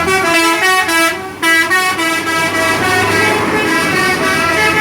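Tour bus's 'telolet' multi-tone musical air horn playing a quick melody: loud horn notes stepping up and down in pitch, with a short break about a second in.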